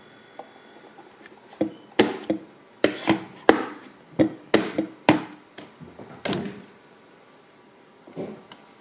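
Euler's disk clattering on a running magnetic stirrer, the stirrer's rotating magnet jerking the steel disk against the plate. About a dozen loud, irregular knocks with a short ring, bunched in the middle and with a couple more near the end.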